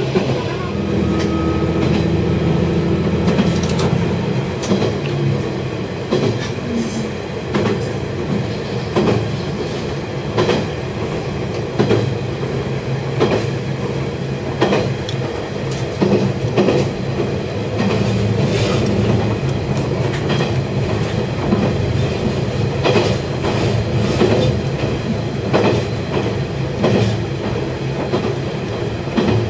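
Diesel railcar running along the track, its engine humming steadily while the wheels click over rail joints again and again.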